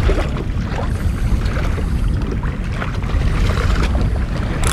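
Water lapping and sloshing against a kayak hull on open ocean swell, with a steady low wind rumble on the microphone.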